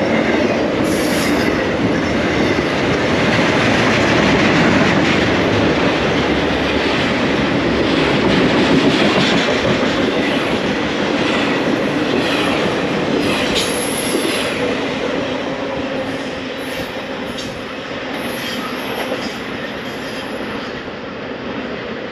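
Intermodal freight train's container well cars rolling past at close range: steady wheel and rail noise, with sharp clicks of wheels over the track in the middle. The sound fades over the last several seconds as the end of the train passes and moves away.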